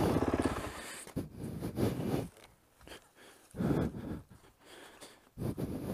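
A Yamaha dirt bike's engine dies away within the first second. Then come three heavy breaths or puffs of air on the microphone, about a second and a half apart.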